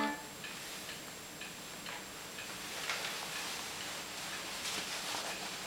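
A vintage Hohner Regina VI piano accordion's last chord cuts off right at the start, followed by faint, irregular clicks and soft rustling from handling and moving about.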